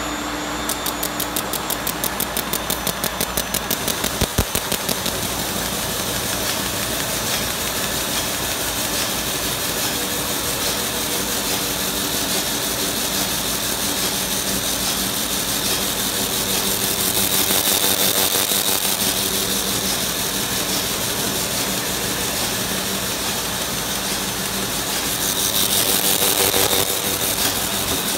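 Card-affixing machine running at production speed: a steady mechanical clatter of belts, rollers and feeders. Rapid, evenly spaced ticking stands out for the first few seconds, and a brighter hiss rises twice later on.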